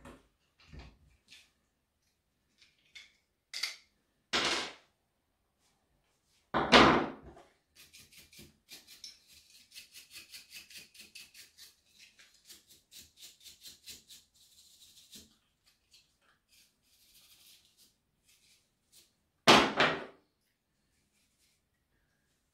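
Small bristle brushes scrubbing debris off a plastic chainsaw part in quick, light, repeated strokes for several seconds in the middle. Three loud knocks, from parts and tools being handled on a wooden bench, come before and after.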